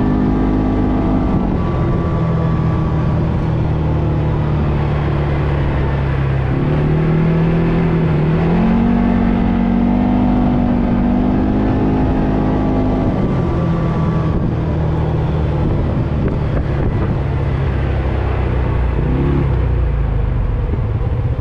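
ATV engine running while riding along a street. The revs drop about a second and a half in, climb over a few seconds in the middle, and fall back again later, with wind rumbling on the microphone.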